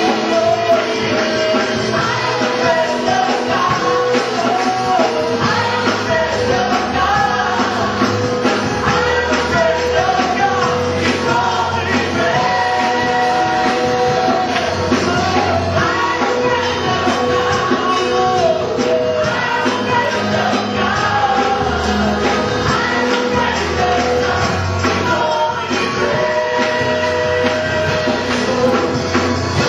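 Church worship music: a full band playing with a voice singing the melody line above it, loud and unbroken.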